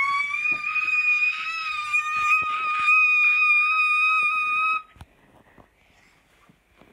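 A person's long, high-pitched scream, held at a steady pitch for about five seconds and then cut off abruptly, followed by a few faint knocks.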